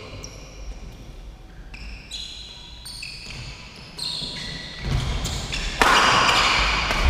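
Sounds of a doubles badminton rally on an indoor court: high sneaker squeaks on the court floor with footsteps, growing louder and busier from about four seconds in.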